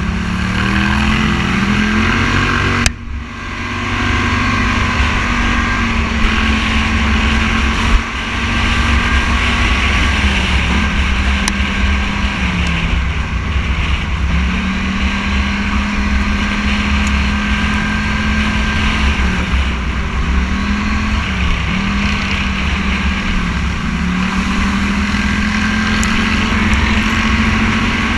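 Engine of a Scrambler 1000 off-road vehicle running at a steady pace, its pitch dropping and coming back up several times as the rider eases off and gets back on the throttle, over heavy wind rumble on the microphone. There is a sharp knock about 3 seconds in and another about 8 seconds in.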